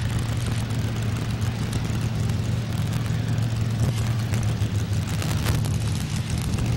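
Engine of a Ford 4x4 modified pulling truck running steadily at a low, even pitch while stopped on the track with the sled still hitched. The run has ended short after trouble at mid-track.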